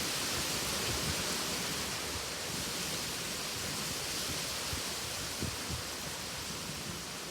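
Steady hiss of wind and light rain, with a few brief low gusts buffeting the microphone.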